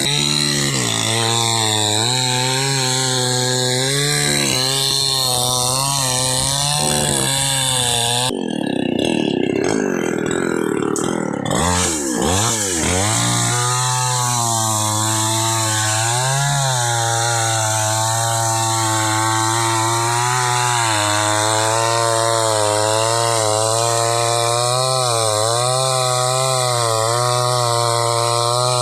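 Chainsaw running at high revs, cutting into a palm tree trunk. About eight seconds in the engine note drops and wavers, then revs back up to a steady cutting pitch around thirteen seconds in.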